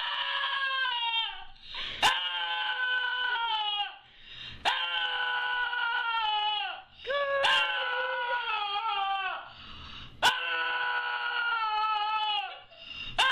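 Small long-haired dog howling: about five long, steady-pitched howls in a row, each dropping in pitch at its end, with short breaths between them. Several howls open with a sharp click.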